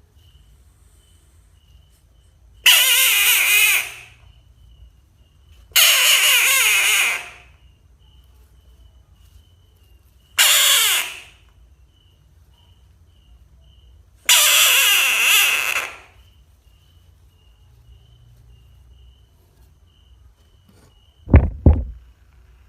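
A frog screaming its distress call: four harsh, drawn-out screams of about a second each, a few seconds apart. Near the end come two sharp, low thumps.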